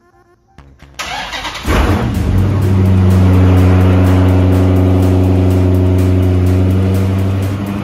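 Dodge Challenger's HEMI V8 being started: it turns over about a second in, catches with a burst, then settles into a loud, steady idle.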